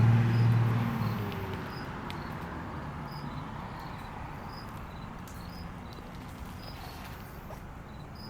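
Short high-pitched insect chirps repeating roughly once a second over steady outdoor background noise. A low engine hum fades away during the first second or so.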